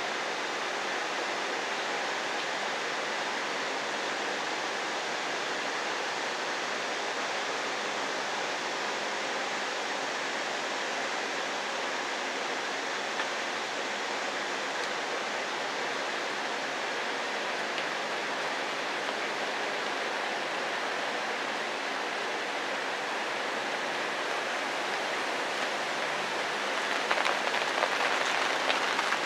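Steady rain falling, a continuous hiss, briefly louder for a couple of seconds near the end.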